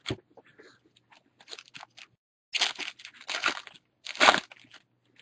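Foil wrapper of a baseball card pack crinkling and tearing as it is pulled open by hand: a few soft clicks of cards being handled, then several rustling bursts, the loudest a little past four seconds in.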